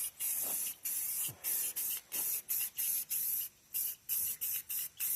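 Aerosol can of Rust-Oleum Painter's Touch spray paint hissing in about a dozen short bursts with brief pauses between, as the metal is given a coat of paint.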